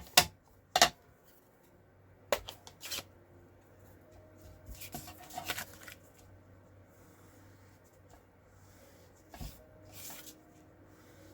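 Craft supplies handled on a desk: a few sharp clicks and taps in the first three seconds, then soft paper rustling and rubbing.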